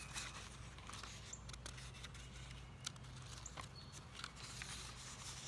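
Faint scattered clicks and paper rustles from a picture book being handled as its pages are turned, over a low steady hum.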